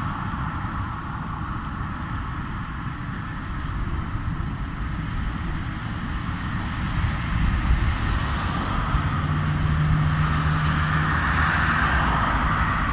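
Wind and road rumble picked up while riding slowly on a small electric personal vehicle over pavement, with a steady low hum for a couple of seconds near the end.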